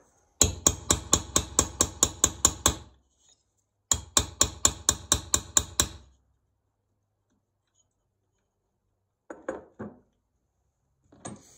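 Hammer tapping quickly on a driver set in a stuck screw on a Stihl 090 G chainsaw engine, to seat the bit and free the screw. Two runs of about a dozen sharp taps, roughly six a second, with a short pause between; a few lighter knocks near the end.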